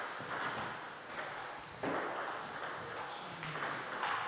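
Table tennis rally: the ball clicking sharply off the bats and the table, several hits in a row.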